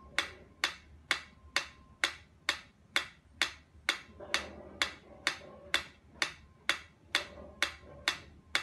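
Mechanical metronome ticking at a steady tempo, a little over two sharp wooden-sounding ticks a second, each with a short ring.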